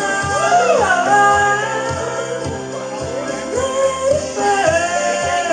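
A woman singing a wordless vocal run, her voice gliding and wavering in pitch, over a pop backing track with a steady drum beat.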